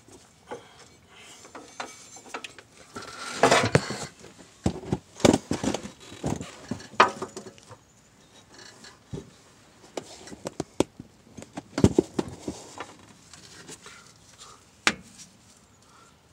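Irregular metal clicks, clinks and knocks from the 2011 Chevy Tahoe's opened rear differential as its ring gear and carrier are turned and handled. The loudest clusters come about three to seven seconds in and around twelve seconds, with one sharp click near the end.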